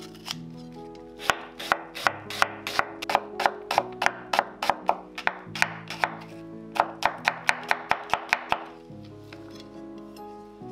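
Chef's knife chopping red onion on a wooden cutting board: quick, sharp knocks about five a second in two runs with a short break between, over soft background music.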